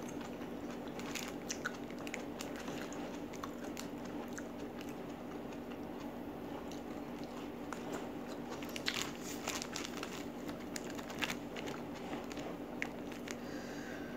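Close-miked biting and chewing of raw vegetables, with scattered short clicks that bunch up about a second in and again around the middle, over a steady low hum.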